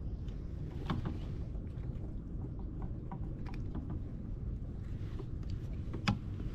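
Steady low rumble of wind and water around a kayak, with faint clicks and taps from handling a hooked fish and a sharper tap about six seconds in.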